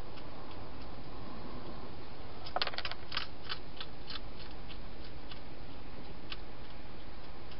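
Wild hedgehog crunching food inside a clear plastic feeding box: a quick run of sharp clicks about two and a half seconds in, then scattered single clicks, over a steady hiss.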